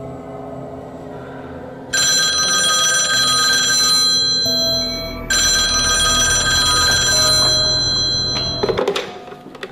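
Landline telephone ringing: two long rings, then a short clatter of clicks near the end as the ringing stops.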